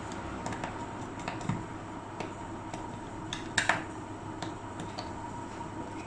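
Scattered small clicks and taps of a hand working a wire into the plastic terminal strip of a home distribution board, the sharpest about three and a half seconds in, over a faint steady background hiss.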